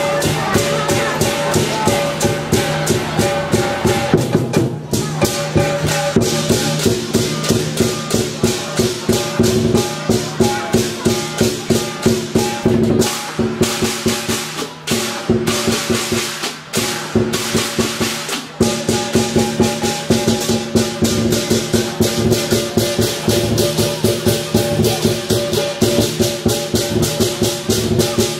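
Lion dance percussion: a big drum with clashing cymbals and a gong playing a fast, dense beat, the cymbals ringing between strikes. The beat drops out briefly a few times in the middle, then picks up again.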